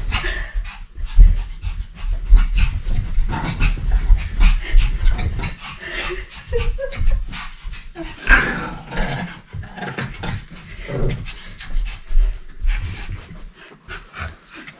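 Small dog panting hard during rough play, mixed with low thuds on the carpeted floor.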